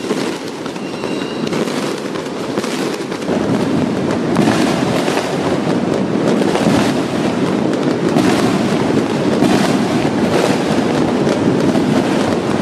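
Strings of Chinese firecrackers going off in a dense, continuous crackle of rapid bangs, growing louder about three seconds in, then cutting off suddenly.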